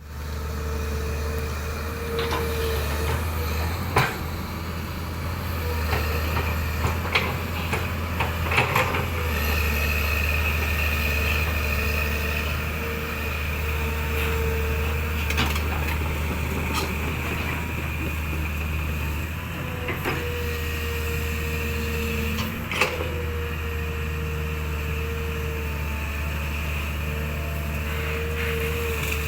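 A motor or engine running steadily with a low hum, with a handful of sharp clicks and knocks over it.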